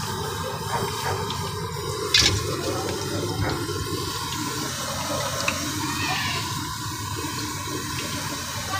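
Hot oil in a kadhai sizzling steadily around half-fried spring rolls draining in a wire-mesh strainer, with one sharp clink about two seconds in.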